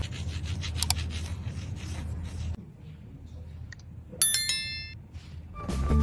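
Rubbing and handling noise over a low hum, with a couple of clicks. A little over four seconds in comes a single bright, bell-like ding that rings out for about a second. Music starts near the end.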